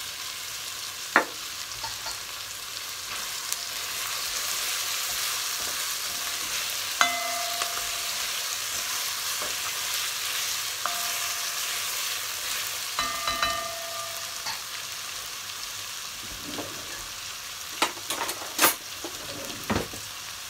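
Chopped onion, sweet peppers and herbs sizzling steadily in hot oil in a cast aluminium pot. A spoon stirring them scrapes and knocks against the pot now and then, with a few short ringing clinks and a cluster of knocks near the end.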